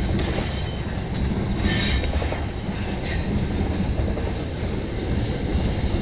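Cars of a CPKC freight train rolling past, with steady wheel-on-rail noise and a short higher squeal about two seconds in.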